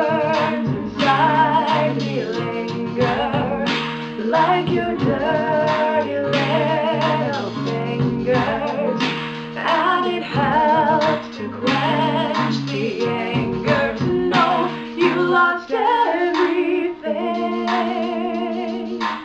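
A woman singing an original song with vibrato, over a recorded instrumental backing with a steady bass line.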